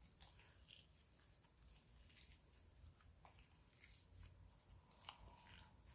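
Near silence, with faint scattered small clicks and sticky pops of cloud-cream slime being stretched and worked in the hands.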